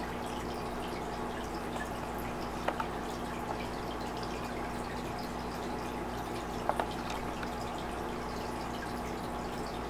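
Aquarium water trickling and dripping over a steady low hum, with two short double clicks, about three and seven seconds in.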